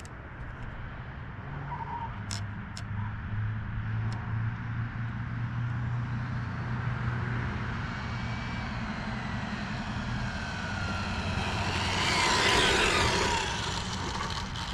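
High-speed RC car with a brushless motor, its whine sliding down in pitch as it runs at speed, then growing loudest and dropping sharply as it passes about twelve seconds in. A steady low hum runs underneath.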